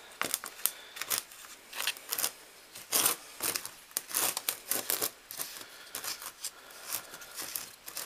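A slurry-coated crucible being rolled around in a clear plastic tub of dry molochite powder: irregular gritty scrapes, crunches and rustles against the tub.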